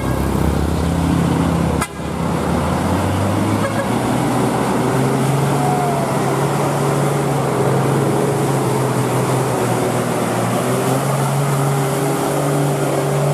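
Vehicle engine running steadily amid road traffic noise, its hum changing pitch a few seconds in.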